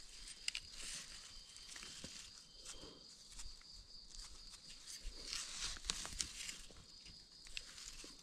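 A small knife scrapes and clicks against soil and mushroom stems, cleaning the dirt off the bases of freshly dug yellow Amanita mushroom eggs. The scraping comes in short, uneven strokes over a steady, faint high-pitched drone.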